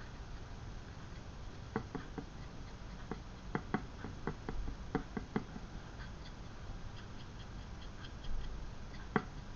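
Small paintbrush dabbing paint onto the textured rocks of a resin diorama base, making light, irregular clicks and taps. A cluster of them comes about two to five seconds in, and one more sharp tap near the end.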